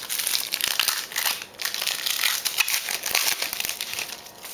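Crinkling and rustling of a trading-card pack's wrapper being opened and handled, a dense crackle that dies away near the end.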